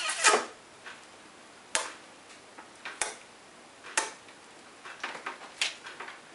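A handful of sharp, short clicks or taps, about five of them at uneven gaps of a second or so, the first the loudest.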